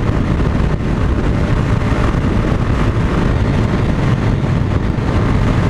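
Yamaha Fazer motorcycle cruising steadily at about 100 km/h: a constant engine drone mixed with wind rush, with no change in throttle.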